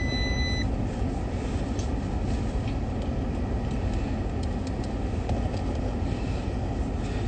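Steady low rumble of a running car heard from inside the cabin, with a short, steady electronic beep at the very start.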